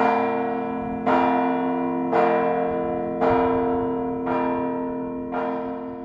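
Music: a ringing, bell-like piano chord struck about once a second, six times, each strike fading slowly under the next.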